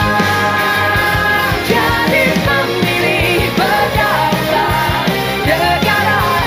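Upbeat pop-rock election song playing as background music: an instrumental passage with a gliding lead melody over a steady drum beat.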